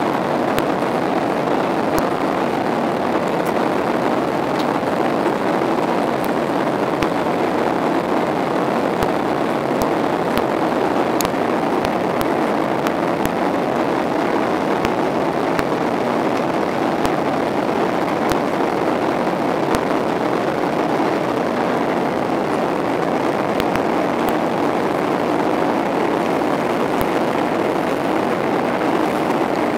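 Steady cabin noise inside a Boeing 737-800 in flight: the even rush of its CFM56 jet engines and the airflow over the fuselage, holding constant with no change in pitch or level.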